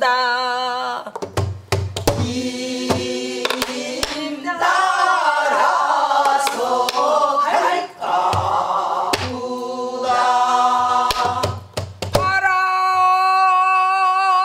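A woman sings pansori and accompanies herself on a buk barrel drum, which is struck in scattered strokes with a stick. For a few seconds in the middle, several voices sing the phrase together.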